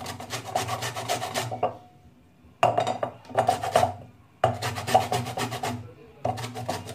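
A lemon rubbed briskly back and forth on a flat stainless-steel hand grater, zesting its peel. The quick rasping strokes come in four bouts with short pauses between them.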